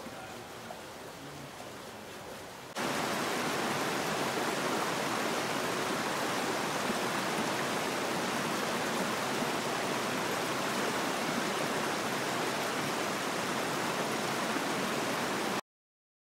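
Muddy floodwater running: a faint trickle along a row of sandbags, then from about three seconds in a loud, steady rush of water pouring down a gravel ditch, which cuts off shortly before the end.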